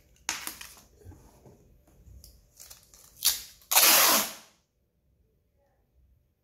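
Brown packing tape being pulled off its roll and pressed onto a cardboard box, in short rasping pulls, the longest and loudest about four seconds in.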